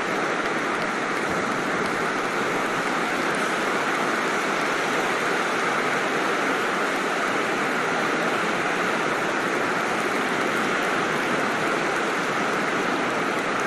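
Steady, dense crowd applause: an even wash of many hands clapping at once, with no single claps standing out.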